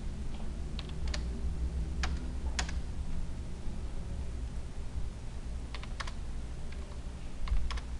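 Sparse clicks from the computer's input devices, about nine in all and mostly in pairs, with a gap of a few seconds in the middle, over a steady low hum.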